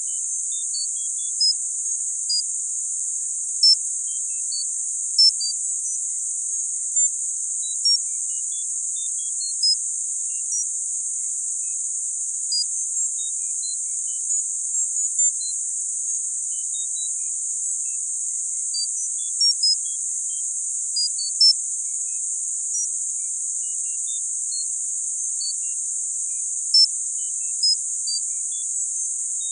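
Tinnitus masking sound: a steady, high-pitched hiss held only in the treble, with short high pings scattered at irregular times, about one a second.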